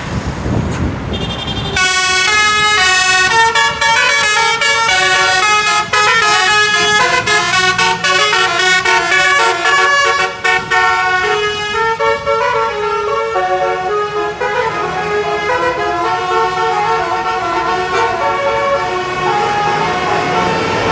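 Telolet musical air horns on two buses sounding together in a duet, playing a quick melody of changing horn notes that starts about two seconds in, after a short stretch of engine and traffic noise.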